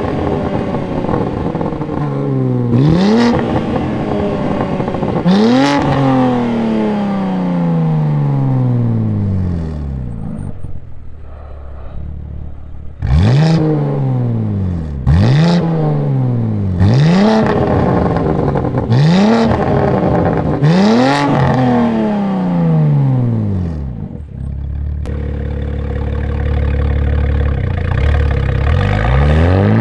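BMW G80 M3's S58 twin-turbo inline-six revved at a standstill through an aftermarket exhaust. There are three revs in the first six seconds, each sinking slowly back, then after a lull five quick sharp revs about two seconds apart. Near the end there is a steady low drone, then another rev as the car moves off.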